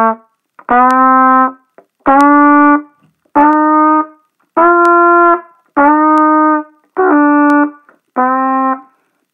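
Trumpet playing a slow beginner warm-up: seven separate tongued notes, each held a little under a second with short gaps between, stepping up in pitch to the middle and back down again.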